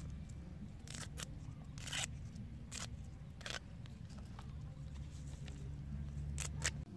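Hands plucking fresh herb leaves from their stems: a handful of crisp snaps and rustles, with two close together near the end, over a low steady rumble.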